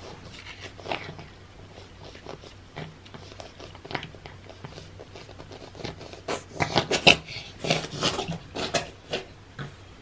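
A cat licking and eating churu paste off a paper plate: scattered wet licking clicks, turning into a busier run of louder smacking licks from about six seconds in.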